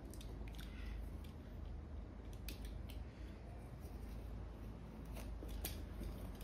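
Utility knife trimming excess rubber from a freshly glued Vibram sole along a boot's edge: a few faint, scattered cutting clicks and scrapes.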